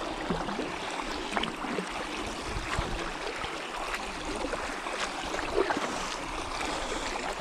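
Water lapping and trickling around a kayak, with scattered small knocks and splashes as the paddler settles in and handles gear.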